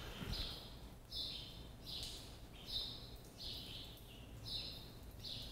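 Faint high chirps repeating evenly, about one every 0.8 s, like a small bird calling over and over against a quiet background hum.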